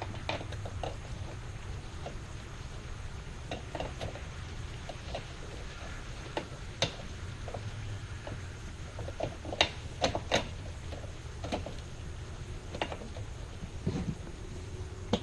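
Irregular small metallic clicks and taps of hand tools and flush-bolt hardware being worked at the edge of a narrow stile door, with a cluster of sharper clicks around ten seconds in, over a steady low hum.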